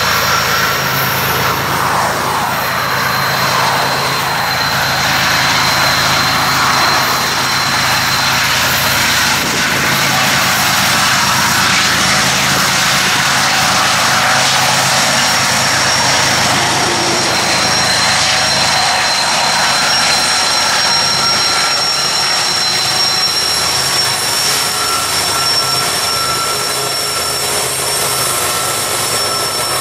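A real BNSF coal train passing, led by GE ES44C4 and EMD SD70ACe diesel-electric locomotives. There is a steady diesel engine drone with thin high whines over the steady noise of the train.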